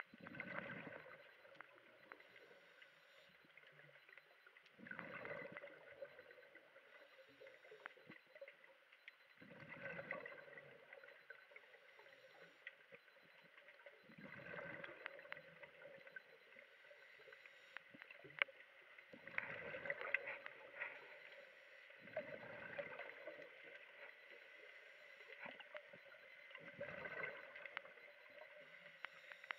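Scuba diver's exhaled breath bubbling out of the regulator underwater, a muffled rushing gurgle of about a second that comes back every four to five seconds with the diver's breathing.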